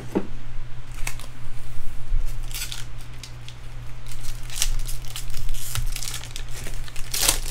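A foil trading-card pack wrapper being torn open and crinkled by hand, in scattered crackles, the loudest near the end.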